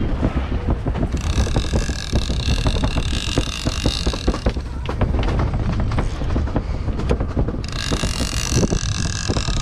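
Wind buffeting the microphone and water slapping against a boat hull make a steady low rumble with scattered knocks. Twice, a high whirring buzz sounds over it: once from about a second in for some three seconds, and again near the end.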